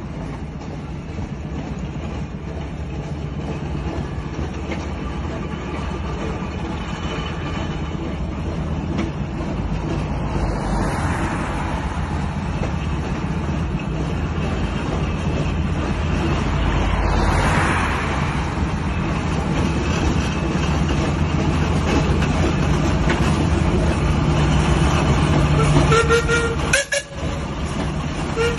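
Burrell 4040 and Fowler 19205 steam engines running along a road, their steady rumble growing louder as they approach. Cars pass about 11 and 17 seconds in, and short whistle toots sound near the end.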